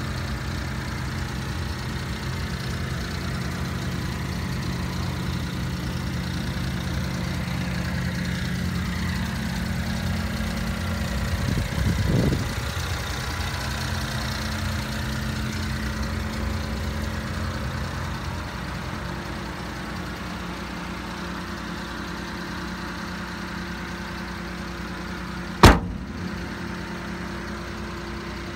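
Mitsubishi Minicab kei dump truck's engine idling steadily. A door shuts with a single sharp bang near the end.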